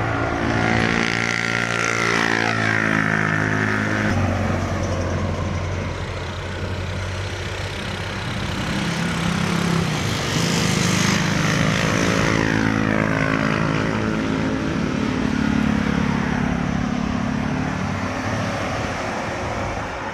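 Road traffic passing close by: vehicle engines going past one after another, their pitch dropping as each one passes, over a steady low engine drone.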